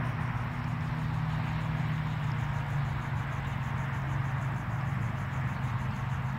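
A steady low motor hum, unchanging throughout, with an even hiss over it.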